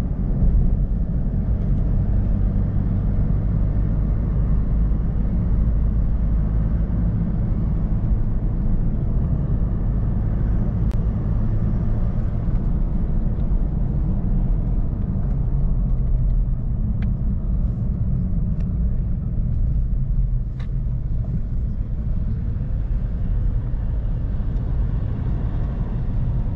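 A motor vehicle's engine running with a steady low drone, with a few faint ticks along the way.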